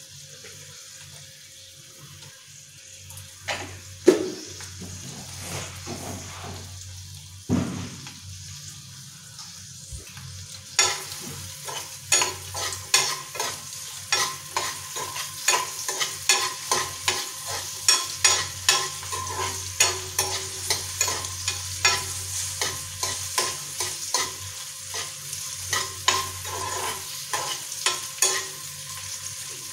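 Onion slices, garlic and cashews sizzling softly in a frying pan over a gas flame, with a couple of sharp knocks in the first few seconds. About a third of the way in, a spatula starts stirring and scraping against the pan in steady strokes, roughly two a second.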